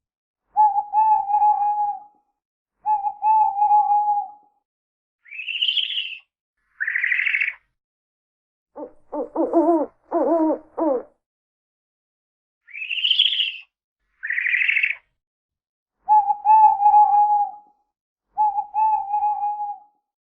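Owl calls in a repeating sequence: two held, steady hoots, then two short calls that rise in pitch, then a quick run of four lower hoots, then the two rising calls and two held hoots again.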